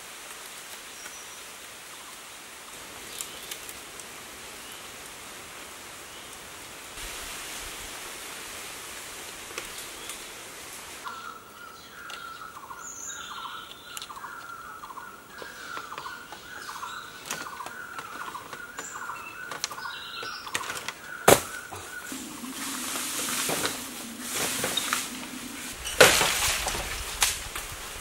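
Green bamboo poles being handled and knocked against the bamboo frame, with one sharp knock about two-thirds of the way through and a run of clattering knocks near the end, over a steady hiss of forest ambience. Through the middle a bird calls over and over, about one and a half chirps a second.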